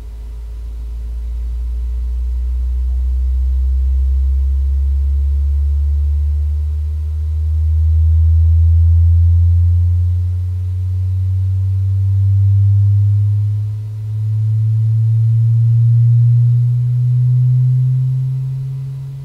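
A sine-wave sweep test tone played through Chane A1.4 bookshelf speakers, one pure low tone climbing slowly in pitch from about 66 Hz to about 156 Hz. Its loudness swells and dips as it rises.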